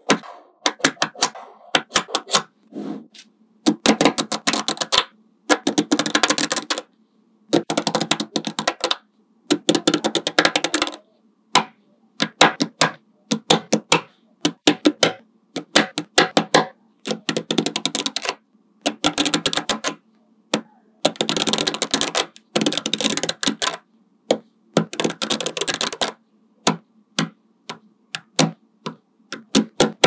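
Small magnetic balls clicking and clattering against each other in rapid runs about a second long, with single sharp clicks between them as balls snap into place; toward the end the clicks come one at a time, spaced apart.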